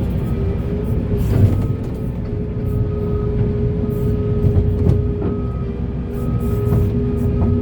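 Heavy excavator working: steady diesel engine rumble with a held hydraulic whine, and several sharp clanks of the bucket and rock.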